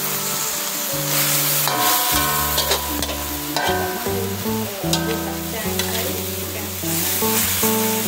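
Pumpkin shoots and black mushrooms sizzling in oil in a wok, turned with a metal spatula that scrapes and clicks against the pan now and then. Background music with plucked guitar-like notes plays under it.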